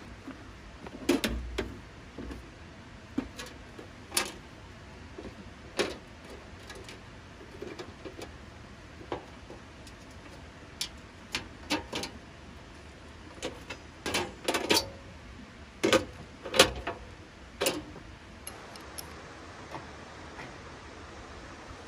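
Sharp metal clanks, knocks and clicks as a Coleman two-burner propane camp stove is set down on a perforated metal table and opened up, its lid and parts handled. The knocks come in clusters, a few about a second in and a busier run from about 14 to 18 seconds, then thin out.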